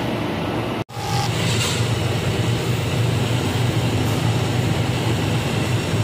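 Steady low hum and rushing noise of a restaurant's ventilation and grill exhaust system. It breaks off for an instant about a second in, then carries on unchanged.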